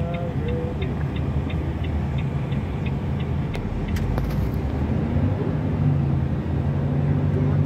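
Truck engine running, heard from inside the cab as the truck drives slowly, its tone steadier and stronger near the end. For about the first three seconds a regular ticking, about three a second, comes from the turn signal.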